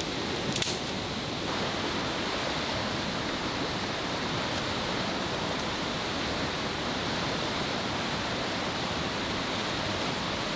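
Fast-flowing river rushing as a steady, even hiss. A single sharp snap about half a second in, as a branch is broken off.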